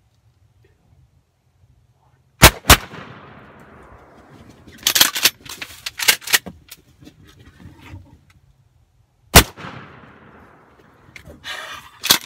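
Shotgun blasts, at least one from a 12 gauge: two almost together about two and a half seconds in as both hunters fire, then a third about seven seconds later, a follow-up shot on a turkey that didn't go down clean. Each blast has a long fading echo, and a run of clicks and rustling falls between them.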